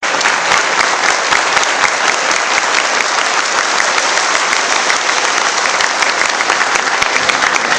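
Audience applauding steadily: many people clapping at once in a large hall.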